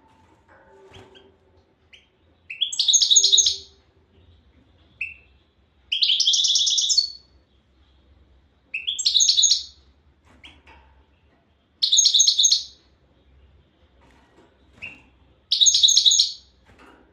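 European goldfinch singing: five bright, twittering song phrases of about a second each, roughly every three seconds, with a single short chirp now and then between them.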